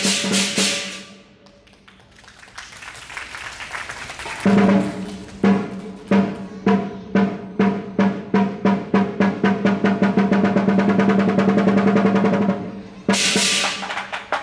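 Lion dance drum and cymbals: a crash that fades at the start, then drum strokes from about four seconds in that start slowly and speed up into a continuous roll. Loud cymbal clashes break in near the end.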